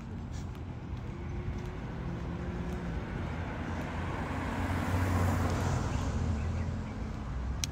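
A car driving past on the road. Its tyre and engine noise swells to a peak about five seconds in, then fades.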